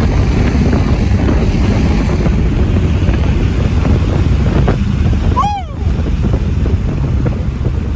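Heavy wind rush buffeting the microphone over car engine and road noise at highway speed during a roll race. About five and a half seconds in, a short high pitched sound rises and falls.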